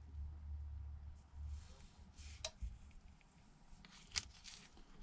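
Faint handling sounds of thin adhesive tape being laid and pressed along the edge of a phone frame, with soft ticks about two seconds in and again about four seconds in.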